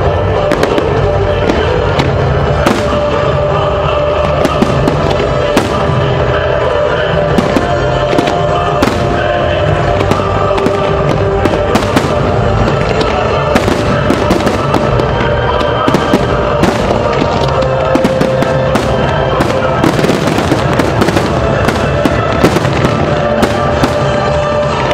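Fireworks shells bursting and crackling in frequent sharp bangs over loud music, the bangs coming thickest near the end.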